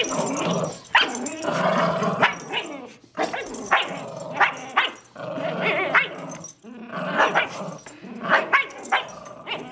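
Two small dogs, a miniature schnauzer and a Lhasa apso, growling continuously in a gremlin-like way while tugging on a rope toy. Short sharp barks and yips break in about once a second.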